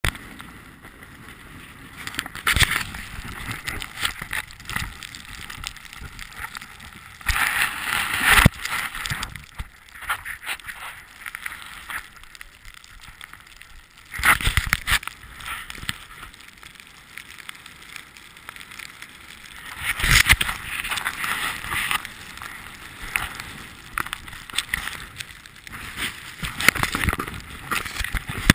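Handling noise from an action camera moved about in snow: irregular rustling and scraping against the housing, with louder bursts every five or six seconds.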